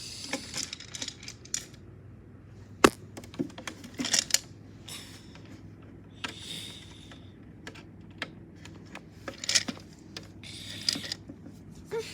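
Small metal chains clinking and rattling against a plastic toy washing machine as they are handled, in irregular clicks with a sharp snap about three seconds in.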